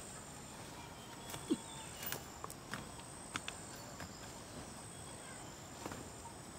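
Insects trilling steadily at a high pitch, with scattered soft clicks and knocks.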